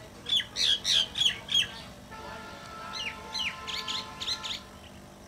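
Bird calling: a quick run of about five sharp, downward-slurred notes, then a second, softer run of similar notes about three seconds in.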